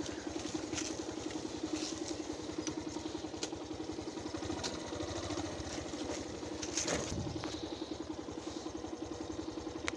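Motorcycle engine running at a low, steady pace while the bike rides over a rough dirt track, with a couple of short knocks about seven seconds in and near the end.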